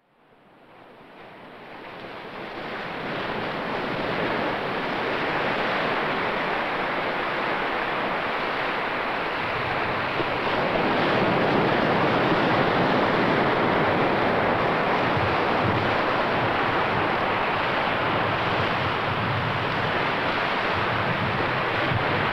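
Ocean surf breaking on a beach, a steady wash of waves that fades in from silence over the first few seconds.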